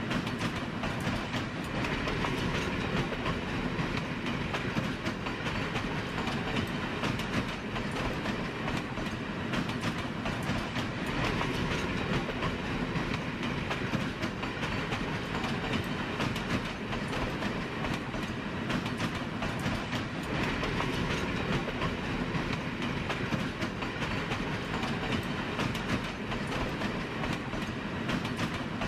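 A train rolling steadily along the rails: an even, continuous running noise of wheels on track with no horn or stops.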